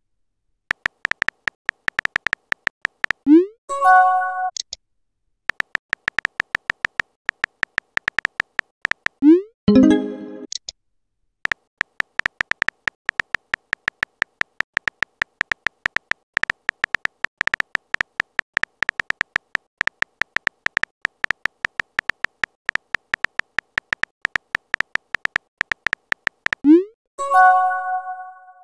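Texting app sound effects: rapid electronic keyboard-typing clicks, broken three times by a message-sent sound. Each send is a quick rising swoop and then a short chime, the last near the end.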